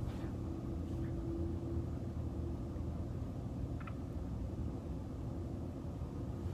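Steady low background rumble and hiss of room noise, with a faint steady tone that fades after about two seconds and a tiny click about four seconds in.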